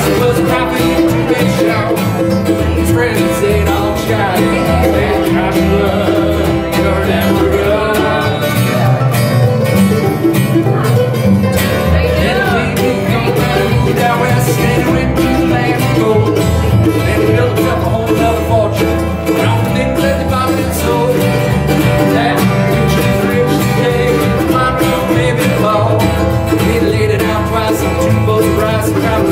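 Acoustic string trio playing a bluegrass-style tune: mandolin and acoustic guitar picking over a plucked upright double bass.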